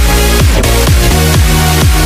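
Background electronic dance music: a steady kick drum about twice a second under sustained synth chords.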